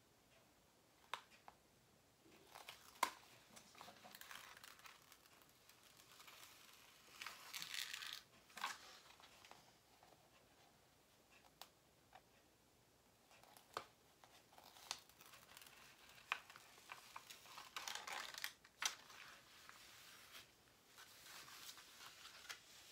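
Plastic cover film on a diamond-painting canvas being peeled back and pressed flat by hand. It is quiet, intermittent crinkling and rustling, with a few sharp crackles and clicks and two longer rustles.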